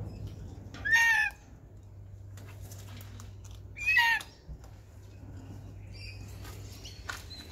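Red-tailed black cockatoo giving two short, loud calls, one about a second in and one about four seconds in.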